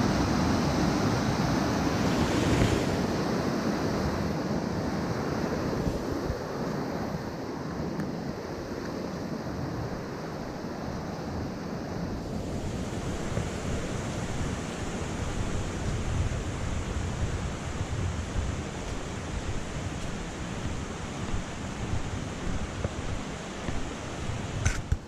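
Steady rush of water from the Oirase mountain stream, its rapids or falls, with a change in its sound about halfway through.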